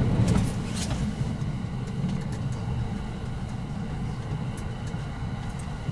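Inside a train carriage on the move: a steady low rumble of the running train, with a faint steady high whine above it and a few faint clicks.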